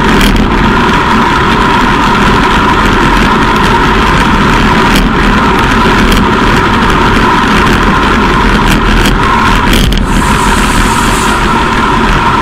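Wind rushing over a bike-mounted camera's microphone and road-bike tyres humming on asphalt at about 49 km/h: a loud, steady rush, with a few short clicks.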